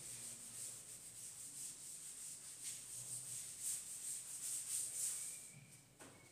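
Cloth duster wiping chalk off a chalkboard: a quick run of rubbing swishes, one after another, dying away about five and a half seconds in.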